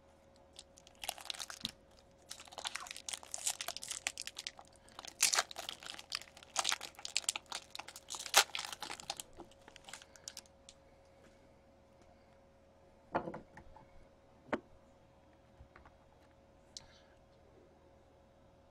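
Clear plastic wrapping around a stack of trading cards crinkling and tearing as it is opened by hand, in dense bursts of crackle for the first several seconds. After that come a few separate clicks and taps as the cards are handled.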